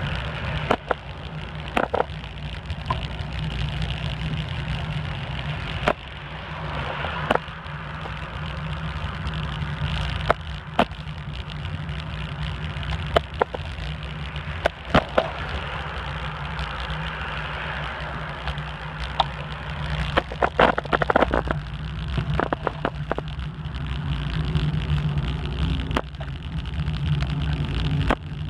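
Bicycle rolling along a cracked street, heard from the handlebars: a steady low rumble of tyre and wind noise, broken by many sharp knocks and rattles as it rides over bumps, with a cluster of them a little past the middle.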